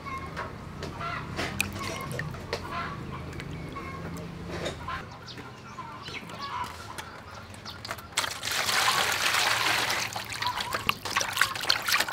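Chickens clucking in short, repeated calls. About eight seconds in, a loud rush of splashing water lasts roughly three seconds, followed by short splashes as meat is washed by hand in a metal bowl of water.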